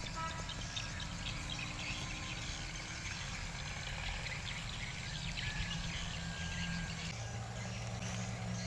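Outdoor ambience: birds chirping and insects over a steady background noise. A low steady hum comes in about seven seconds in.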